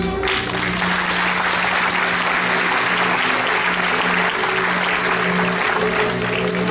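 Audience applause breaking out suddenly and continuing steadily, over a low held note in the show's music.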